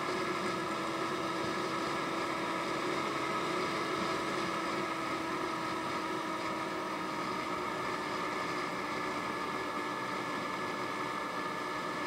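Honda Ruckus scooter's single-cylinder four-stroke engine running steadily at cruising speed, a constant drone with a steady hiss of road and wind noise over it.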